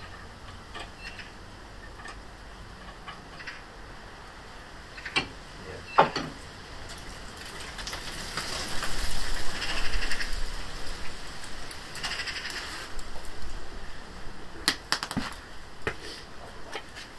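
Hand tools working on a Fiat 500's front suspension: scattered sharp metal knocks and clinks, the loudest about six seconds in, and two stretches of fast, fine clicking a little past the middle.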